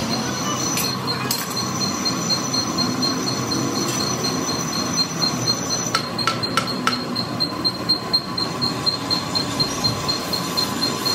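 Metalworking machine running with a loud rumble and a high tone that pulses about four times a second, with a few sharp clicks, the first near the start and a cluster about six seconds in.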